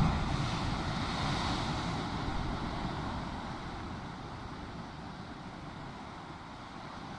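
Sea surf washing on the shore with wind buffeting the microphone, the wash growing gradually quieter over the first few seconds.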